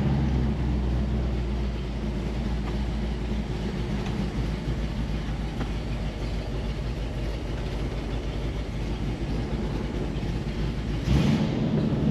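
1967 Mustang's 390 big-block V8 idling, heard from the cabin, with the heater blower fan running as a steady rush.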